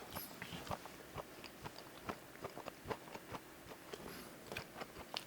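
A person chewing food close to the microphone: faint, irregular wet mouth clicks, several a second.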